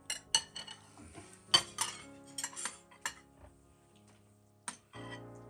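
Forks and knives clinking against porcelain plates while people eat: about a dozen sharp clinks, the loudest about a second and a half in.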